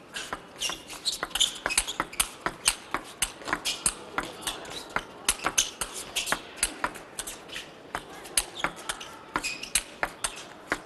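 Table tennis rally: the ball is struck back and forth by the players' bats and bounces on the table in a steady run of sharp clicks.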